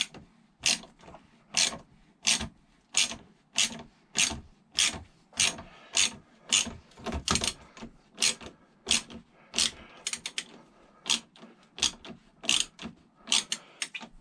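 Ratchet wrench clicking in short sharp bursts about every half second as the handle is swung back and forth, undoing the top cap of an upside-down motorcycle fork.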